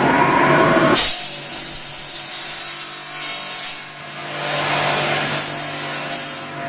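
Z purlin roll forming machine running with a rising whine, then a sharp loud clank about a second in as the forming noise drops away. The flying saw then cuts through the steel purlin with a high grinding hiss that swells and fades over a steady low hum.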